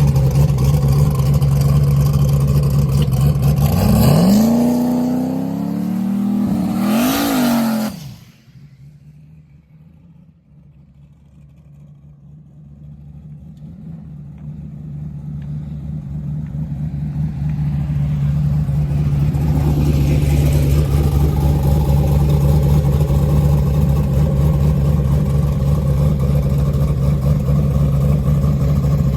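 Race car engine running with a loud steady drone, revved up twice about four and seven seconds in, then cutting off abruptly. After several quieter seconds, an engine drone builds back up and holds steady.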